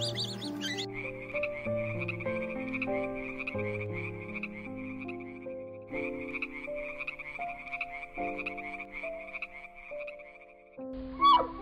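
A frog croaking in long, rapidly pulsed trills, two bouts back to back, over background music with a slow melody. Near the end a short, loud gliding call cuts in.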